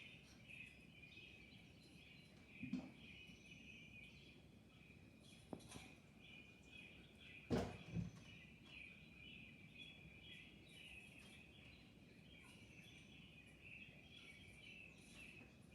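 Faint, steady chirping of small birds, with a few soft thumps; the loudest is a pair about halfway through.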